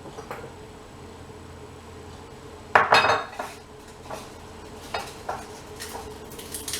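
Kitchenware clinking and clattering as a cook handles a pot and utensils, with a loud cluster of clinks about three seconds in and a few lighter clicks after, over a faint steady hum.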